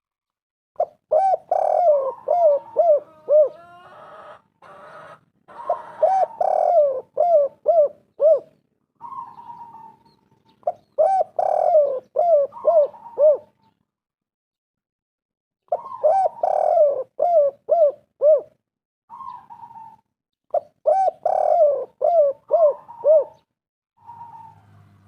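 Spotted doves (tekukur) cooing: about five phrases, each a run of short arched notes, with brief pauses between them.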